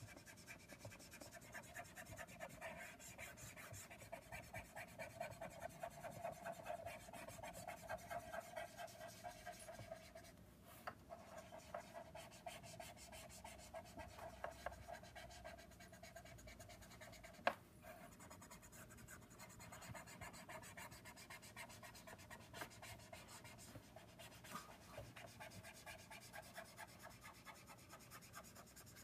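Copic alcohol marker's brush nib rubbing over paper in faint, quick, repeated strokes, blending the ink to soften an edge. One sharp click a little past halfway.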